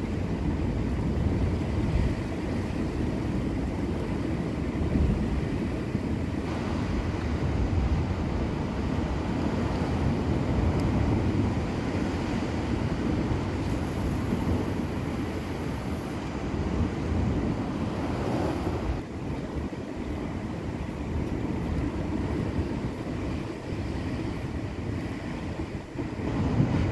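Coastal wind buffeting the microphone as a steady low rush, with sea surf mixed in.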